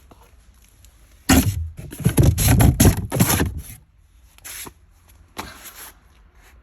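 Handling noise: a cluster of rough scrapes and knocks starting about a second in and lasting about two and a half seconds, then a few fainter scrapes.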